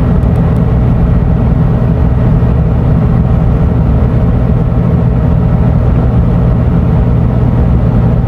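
Scania Euro 6 diesel engine of an Irizar i6S coach running steadily, a low drone holding one pitch throughout.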